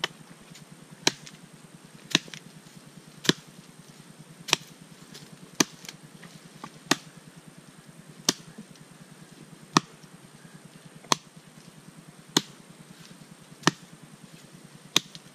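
Axe chopping into a wooden pole: a steady run of about a dozen sharp chops, roughly one every second and a quarter.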